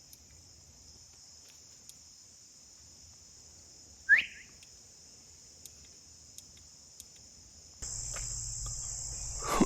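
Steady high-pitched chorus of crickets. A single short rising chirp cuts through about four seconds in, and a low background rumble comes in near the end.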